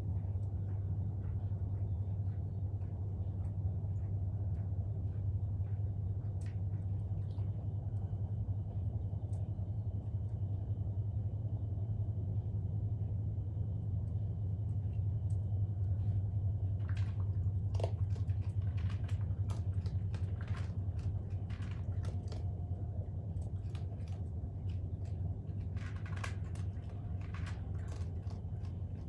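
A young raccoon lapping water and chewing food: scattered small clicks and ticks that come thicker in the second half. A steady low hum runs underneath.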